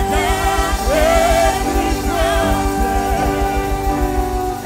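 Live gospel worship music: held chords over a steady pulsing beat, with a voice singing a wavering line about a second in.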